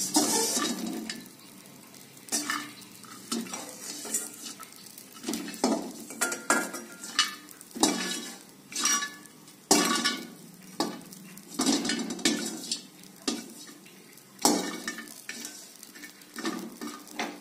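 Metal spoon stirring and scraping pieces of nutmeg around a dry stainless-steel wok, in irregular scrapes and knocks about every second, as the nutmeg dry-roasts on low heat.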